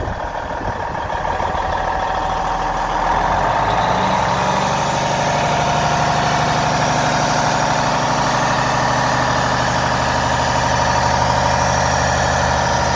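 1999 Kenworth semi tractor's diesel engine idling steadily, getting louder about three seconds in.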